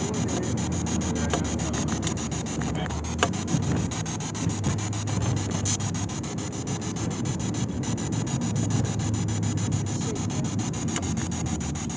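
Steady low rumble of road and engine noise inside a moving car's cabin, with rubbing and scraping of a handheld camera against its microphone and a few sharp clicks.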